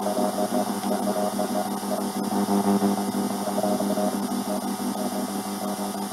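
Regenerative shortwave radio receiver playing through its speaker: steady static hiss with a low hum, and faint tones switching on and off, a bit of Morse code in the noise.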